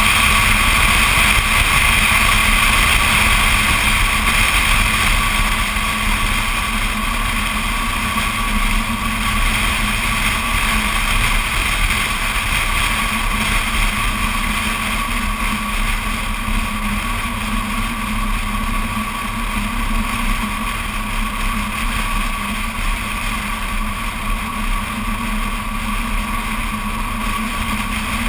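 BMW Z4 Coupé cruising at steady speed: continuous wind rush and road noise picked up by a camera mounted on the outside of the car, easing slightly a few seconds in.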